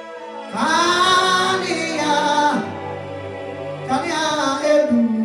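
Gospel singing: a voice holding two long sung phrases over sustained instrumental chords.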